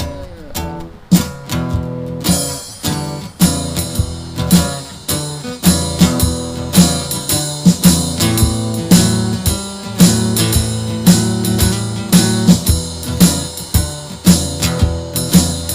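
Live blues instrumental intro: guitar playing chords with hand drums joining in about two seconds in and keeping a steady beat.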